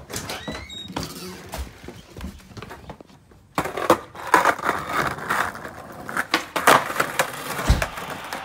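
Skateboard on a brick-paver patio: wheels rolling and the board clacking and slapping down in a string of sharp impacts, with a heavy thud near the end. Before that, scattered knocks and footsteps, with a short squeak early on.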